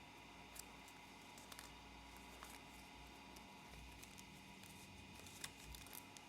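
Near silence with a few faint, scattered crinkles and clicks of origami paper being folded and creased.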